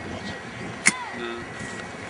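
Distant jet engine noise from a twin-engine Boeing 757 at takeoff power on its takeoff roll. Just under a second in there is a sharp click, followed by a short falling tone.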